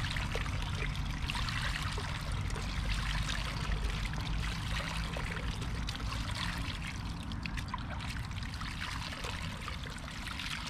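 Seawater scooped from a shallow pool and poured repeatedly over lugworms in a plastic sieve, trickling and splashing through the worms and mesh back into the pool: rinsing the sand off the bait worms.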